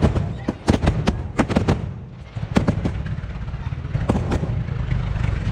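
Aerial fireworks bursting, played back at double speed: a rapid volley of sharp bangs over a steady low rumble, a brief lull about two seconds in, then more scattered bangs.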